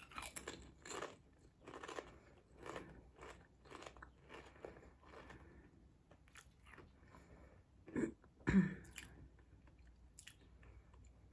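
A crisp Lay's potato chip being bitten and chewed with the mouth close to the microphone: sharp crunches about twice a second that grow fainter as the chip breaks down. About eight seconds in there are two short, louder sounds from the voice.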